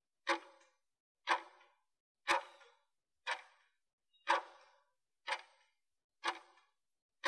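Countdown timer ticking: a short, sharp clock-like tick once every second, marking the last seconds of a workout interval.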